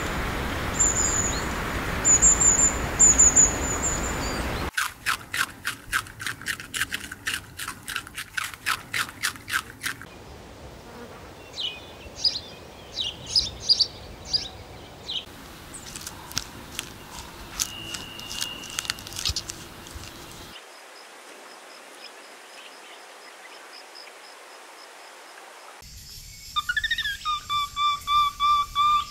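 A string of short small-animal sound clips: high chirps over a hiss, fast trains of clicking chirps, high twittering, and a faint steady high-pitched trill. Near the end, a black tamarin gives a run of short whistled calls.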